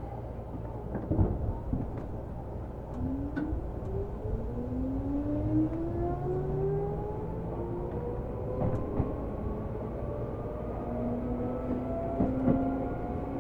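Seibu New 2000 series electric train pulling away and accelerating: the traction motor and inverter whine climbs steadily in pitch over a low running rumble. There are a few clunks about a second in.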